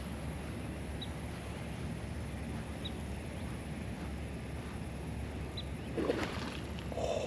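Steady low outdoor rumble with a few short, high single chirps spaced a second or two apart, and a brief louder noise about six seconds in.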